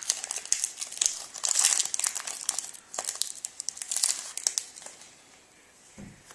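Wrapper of a hockey trading-card pack crinkling and crackling as it is handled and torn open, dying down about five seconds in.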